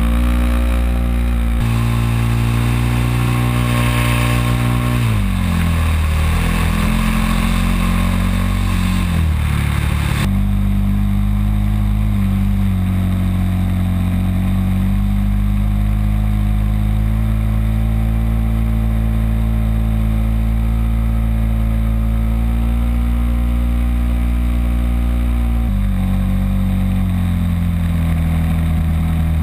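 Cessna light aircraft's piston engine and propeller droning steadily in flight, heard from a camera on the cabin roof with wind rushing over the microphone. The engine note dips and rises again between about five and ten seconds in, then holds steady.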